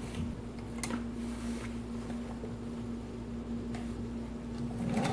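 Quiet handling of folded layers of denim slid across a sewing machine bed under the presser foot, with a few soft clicks, one about a second in. A faint steady hum holds throughout.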